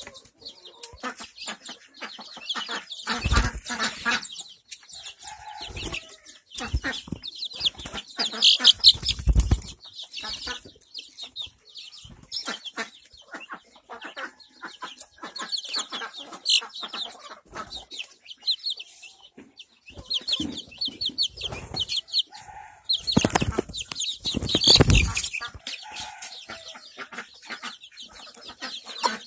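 Young desi chicks peeping in quick runs of short, high notes, broken by several loud flurries of wing flapping, the longest about two-thirds of the way through.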